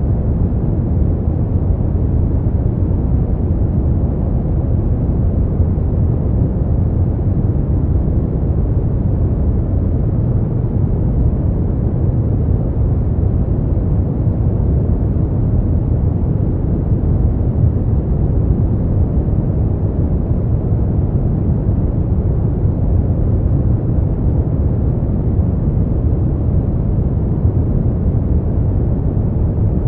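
Steady sleep-noise track: an even, deep rumbling hiss, heavy in the bass and muffled, with no high hiss and no change in level.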